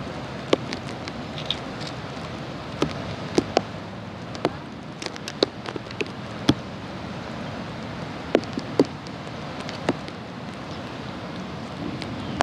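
Scattered raindrops ticking irregularly, a dozen or so sharp taps over a steady hiss of background noise.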